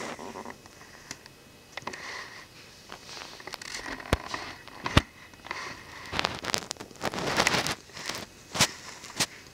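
Irregular sharp clicks and taps mixed with short scraping rustles, busiest in the second half, with one loud click about halfway through.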